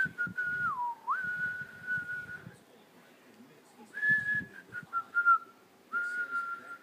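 A dog whining in a thin, high, steady tone, in three spells: the first dips lower about a second in and holds, the second starts a little higher and slides down, the third is short and level.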